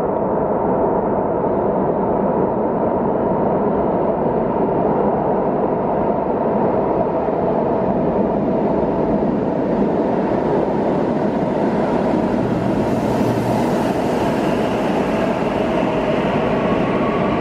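A CAF AS-2014 metro train on the neighbouring track approaches through the tunnel and passes close by, over a steady loud rumble. A hiss builds from about ten seconds in, and a steady whine of its traction motors comes in near the end as the train goes past.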